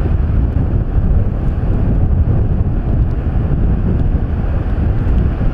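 Strong wind buffeting the microphone, a loud, low, unsteady rush, with ocean surf breaking beneath it.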